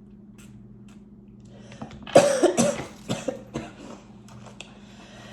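A woman coughing: a hard first cough about two seconds in, followed by three weaker coughs in quick succession, over a steady low electrical hum.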